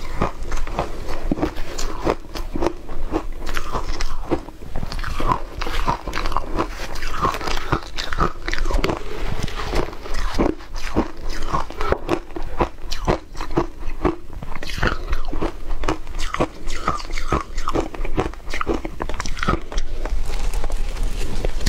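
Close-miked mouth crunching and chewing mouthfuls of shaved ice dusted with matcha, a dense, irregular run of crisp crunches.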